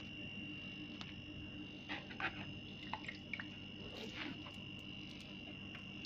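A refrigerator compressor runs with a faint steady hum and a high, even whine. A few light clicks and taps come about two to four seconds in.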